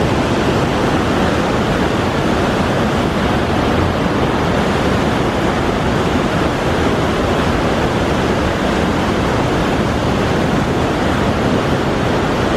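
Waterfall on the McCloud River, a steady, loud rush of falling water with no breaks or changes.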